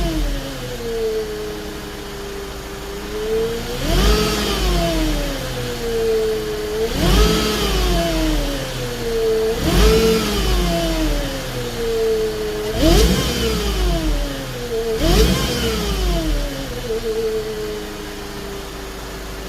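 Mercedes-Benz C200 Kompressor's supercharged M271 four-cylinder with its Eaton M65 supercharger, revved in five quick blips. Each rev rises sharply and sinks slowly back to idle, the supercharger whine climbing and falling with the revs. It settles to a steady idle near the end.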